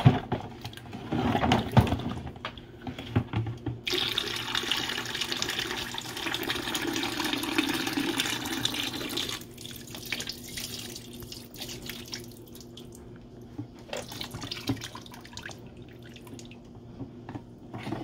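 Water pouring steadily for about five seconds, starting about four seconds in. Before and after it come knocks and clatter from the plastic garbage disposal unit being handled and tipped over a plastic bucket.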